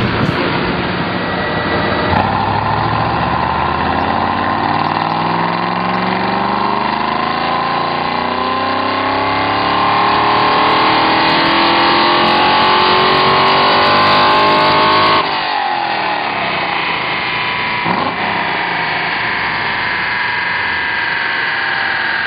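A 2010 Chevrolet Camaro SS's 6.2-litre V8 runs through a Doug Thorley catback exhaust during a full-throttle chassis-dyno pull. After a couple of seconds the revs climb steadily for about thirteen seconds, then the throttle closes abruptly and the engine coasts down with its pitch slowly falling.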